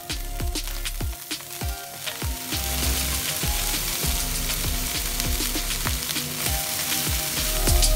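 Fried rice sizzling in a nonstick wok as a spatula stirs and turns it; the sizzle grows louder a few seconds in. Background music with a steady beat plays underneath.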